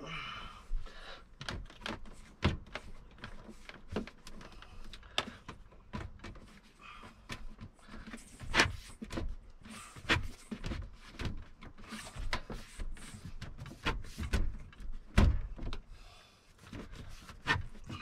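Irregular knocks, bumps and scrapes of a plastic portable fridge being shoved and wiggled into a tight-fitting wooden cabinet opening, with a heavier thump about fifteen seconds in.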